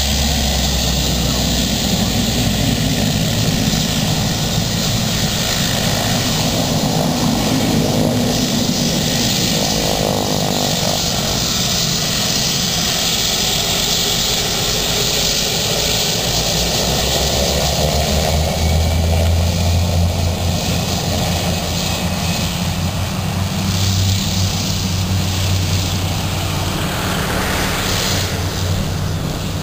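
Aircraft engines running loud and steady as a plane moves on the runway, with a low hum that grows stronger past the middle.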